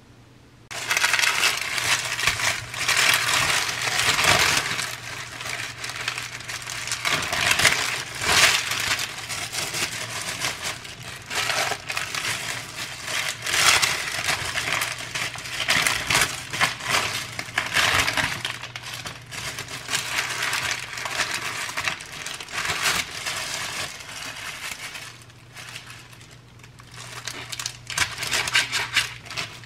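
White wrapping paper crinkling and rustling as thawed ground-meat patties are unwrapped and handled with disposable plastic-gloved hands. Near the end, a chef's knife cuts through a patty on the paper.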